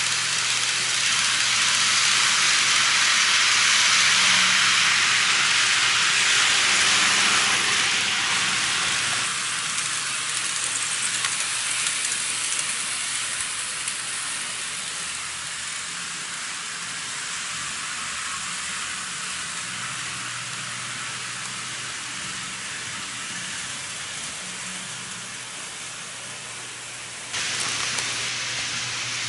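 N-gauge model train running on sectional track: a steady rattling hiss of small wheels on the rails over a low hum. It is loudest in the first several seconds as the train passes close, and changes abruptly about nine seconds in and again near the end.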